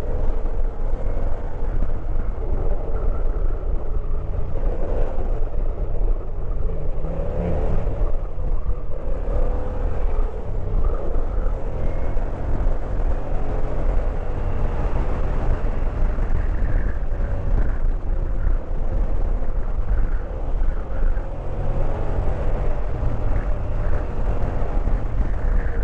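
Motorcycle engine running at cruising speed, its pitch rising and falling with the throttle, under a steady rumble of wind buffeting the microphone.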